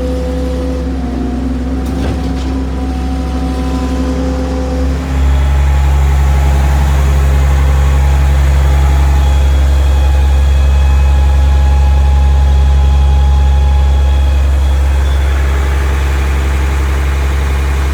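Heavy diesel engine of a truck-mounted concrete boom pump running steadily. About five seconds in, it steps up to a higher, louder speed and holds there.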